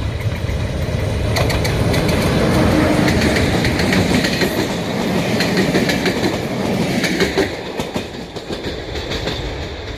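A train passing close by, its wheels clicking over the rail joints in a rapid clatter. It grows louder over the first couple of seconds, then fades away over the last few.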